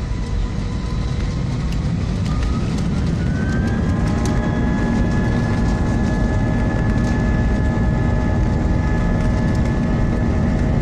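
Airliner engines spooling up to takeoff thrust, heard from inside the cabin over a dense low rumble. A whine rises in pitch about three seconds in and then holds steady, and the whole sound grows gradually louder as the plane accelerates down the runway.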